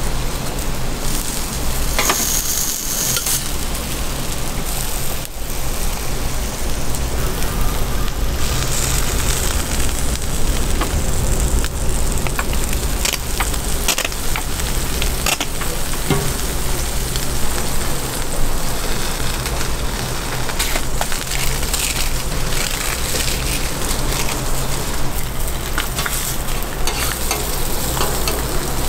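Food sizzling steadily on a hot flat griddle as street toast is cooked, with occasional clicks and scrapes.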